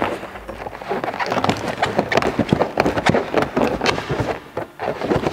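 Inflated latex balloons rubbing and squeaking against each other as a cluster is pressed and settled into the column, in a rapid irregular run of short squeaks.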